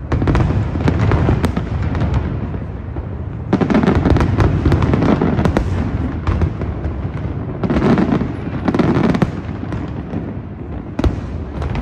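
Fireworks display going off: rapid volleys of bangs and crackling that come in bursts, one right away, another about three and a half seconds in and another about eight seconds in. A single sharp bang follows near the end.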